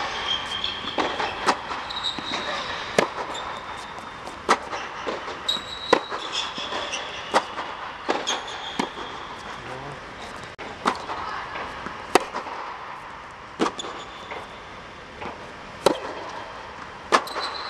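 Tennis rally on a hard court: sharp pops of the ball off the racket strings and off the court, about every one to one and a half seconds. Short squeaks of tennis shoes on the court surface fall between the hits, with the sound ringing under a large indoor dome.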